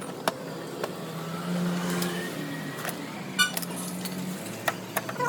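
A motor vehicle running with a steady low hum, and several sharp clicks over it, including a quick rattle of ticks about three and a half seconds in.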